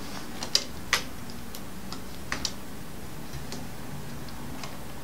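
Scattered light clicks and taps, about six in a few seconds, the two loudest near the start, from hands handling fabric and parts of a domestic sewing machine while the work is set under the presser foot. A faint steady low hum runs underneath; the machine is not stitching.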